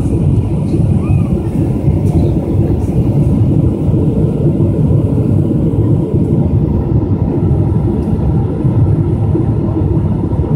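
Steady low drone of jet engines and rushing airflow heard inside the cabin of a Boeing 777-200 airliner in flight.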